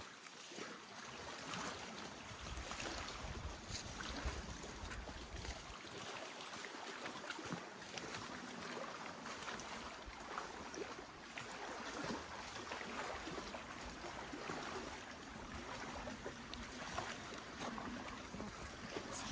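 Faint outdoor ambience of water lapping at the shore, with intermittent low wind rumble on the microphone and small scattered rustles and ticks.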